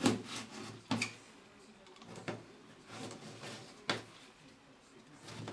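A few separate light knocks and clatters, about four in five seconds, of tools being handled against a plasterboard wall after the oscillating multi-tool has stopped.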